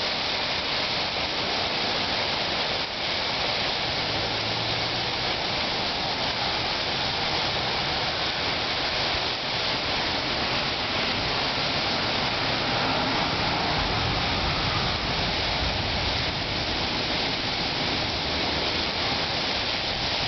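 Sleet falling in a winter storm: a steady, even hiss of ice pellets striking surfaces.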